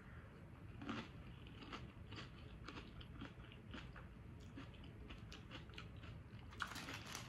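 A person chewing a mouthful of tortilla chip: faint, irregular crunches, a little louder near the end.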